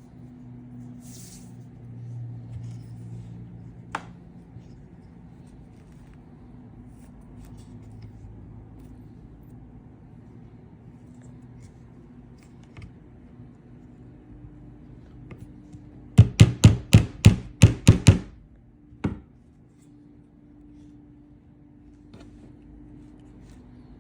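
Low steady hum, broken by a quick run of about eight sharp knocks about two thirds of the way through, with one more a second later.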